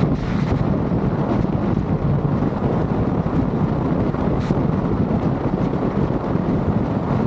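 Steady wind rush on the microphone of a motorcycle in motion, with the bike's engine and road noise underneath.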